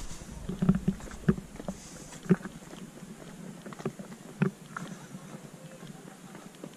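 Footsteps on a stone-paved path: a series of short, uneven knocks, densest in the first couple of seconds and thinning out after about four and a half seconds.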